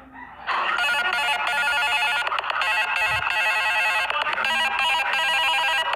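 Samsung Galaxy J2 Prime ringtone playing from the phone's speaker: a fast, busy pattern of repeated high electronic notes that starts about half a second in.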